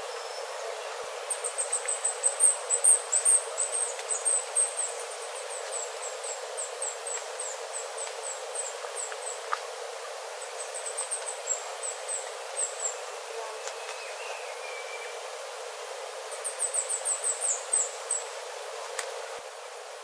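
Golden-rumped flowerpecker calling: rapid series of very high, thin "tzee" notes, each sliding slightly down in pitch. The series comes in three bouts, a long one near the start, a shorter one midway and another near the end.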